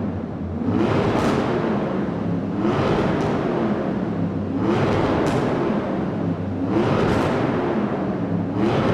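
Motorcycle engine being revved in repeated throttle blips, the pitch rising with each blip about every two seconds over a steady running sound.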